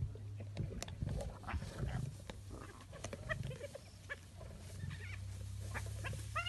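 Lions growling over a fresh kill, with scattered short, higher-pitched calls and a steady low hum underneath.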